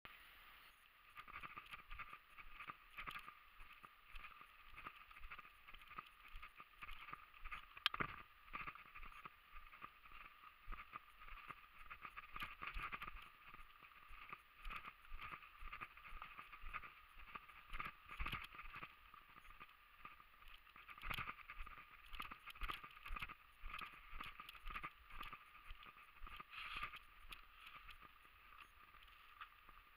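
Faint footsteps through grass and dry leaves with rustling and knocking of carried gear, as a walker moves along with a rifle; one sharper click about eight seconds in.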